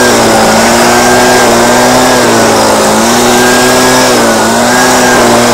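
Husqvarna 125BV handheld leaf blower's two-stroke engine running steadily at high speed, its pitch wavering gently up and down, with the choke pulled because for lack of maintenance it only runs that way.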